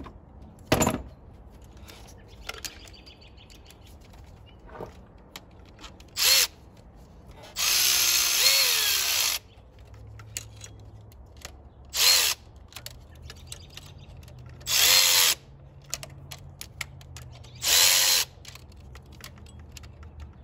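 Cordless electric ratchet running in five short bursts, one of them nearly two seconds long with its pitch wavering as it loads. It is snugging the mounting bolts of a newly fitted high-pressure fuel pump a little at a time, alternating between them. A sharp click of a tool comes about a second in.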